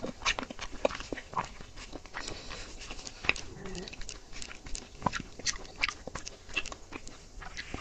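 Close-miked eating sounds: a metal spoon scraping soft cream from a broken cake shell, and wet lip and tongue smacks as the cream is eaten off the spoon. Sharp, irregular clicks come several times a second.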